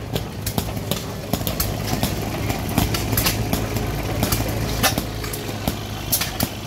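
Foos Jr. 6 hp single-cylinder hit-and-miss engine running, with irregular sharp clicks and pops over a steady low hum.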